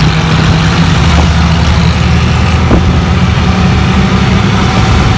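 Auto-rickshaw engine running steadily while the three-wheeler is under way, heard loud from inside the open passenger cabin along with road noise.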